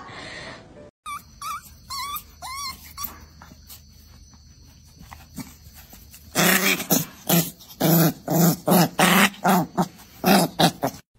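Small black dog growling and barking in a quick series, about three a second, from about six seconds in; a few short high whines come earlier.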